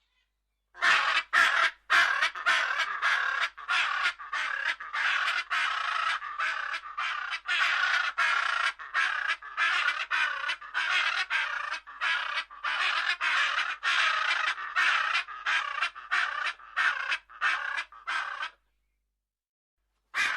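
A bird calling in a rapid, scratchy run of calls, several a second and almost without pause, which stops shortly before the end.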